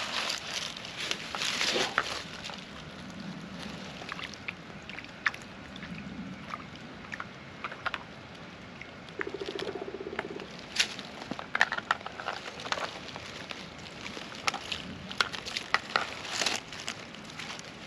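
Small, irregular scratchy scrapes and clicks of a knife working on a freshly caught fish as it is cleaned and filleted. A short buzz comes in about nine seconds in.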